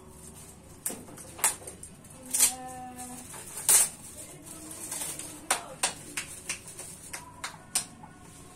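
Metallic foil gift wrap crinkling and crackling in the hands as a small present is unwrapped, in irregular sharp crackles with the loudest a little under four seconds in.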